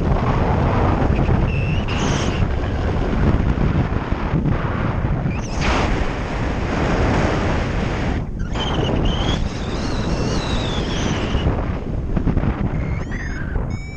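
Wind rushing over the microphone of a camera mounted on a paraglider pilot in flight: a loud, steady rush that swells and dips. Near the end a few short rising electronic tones begin.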